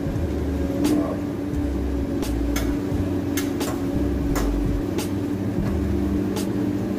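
A spoon tapping and scraping in a stainless steel frying pan while sauce is stirred, with sharp clicks at irregular moments over a steady low hum.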